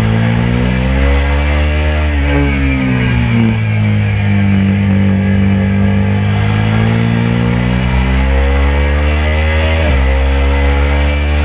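KTM RC 390's single-cylinder engine pulling hard on track, its pitch rising, easing off and rising again through a corner, then dropping sharply near the end as it shifts up and climbing again under acceleration. Wind rushing over the bike underneath.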